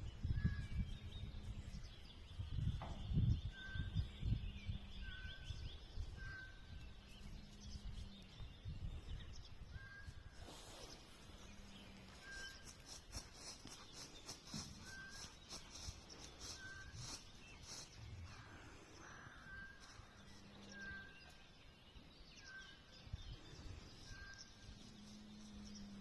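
A bird repeating a single short call note about once a second, over low outdoor rumble that is heaviest in the first few seconds.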